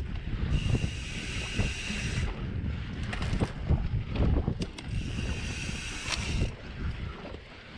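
Mountain bike ridden along a dirt trail: wind buffeting the camera's microphone and the bike knocking and rattling over the ground make a constant rumble. Twice, for under two seconds each time, the rear hub's freewheel buzzes as the rider coasts, starting and stopping abruptly.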